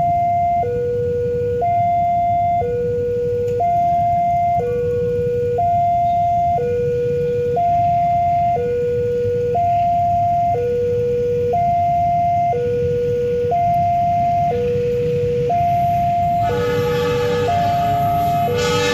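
Level-crossing warning alarm sounding, an electronic two-tone signal alternating high and low about once a second, warning that a train is approaching. About sixteen seconds in, the approaching train's CC 206 diesel locomotive blows its horn over the alarm.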